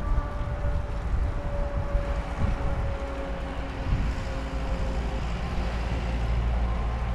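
Wind buffeting the microphone and bicycle tyres rolling on an asphalt path while cycling, with a faint steady whine that fades out about five seconds in.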